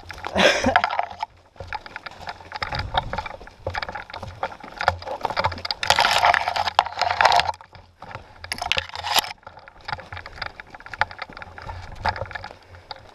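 Footsteps crunching through dry leaves and brush on a forest floor, with twigs and branches scraping past. The rustling comes in louder bursts about half a second in, around six to seven seconds in, and again around nine seconds in.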